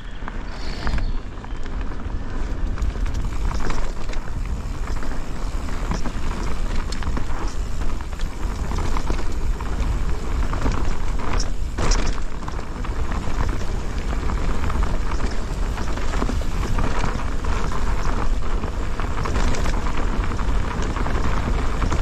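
Electric mountain bike rolling fast along a dirt forest trail: tyres running over packed dirt and leaves, with the bike rattling over bumps and wind buffeting the handlebar-mounted camera's microphone, giving a steady low rumble. A sharp knock about halfway through.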